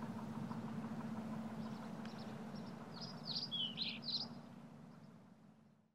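Outdoor city ambience with a steady low hum, and a bird giving a quick burst of sweeping chirps about three seconds in. The ambience fades out near the end.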